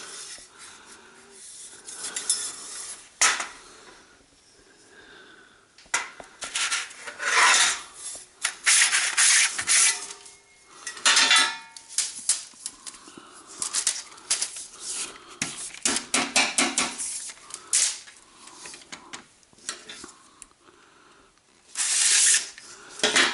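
Copper conductor strips being slid out of aluminium track-lighting extrusions: metal scraping and rubbing along the channel in irregular bursts, with clinks and clatter as the lengths knock together. There is a brief metallic ring about eleven seconds in.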